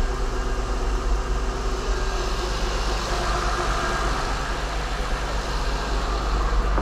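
3rd-generation Acura TL Type S 3.5-litre V6 running steadily with a deep, even hum, freshly fitted with a new clutch, flywheel and solid engine mounts; it runs rough enough that the whole car vibrates.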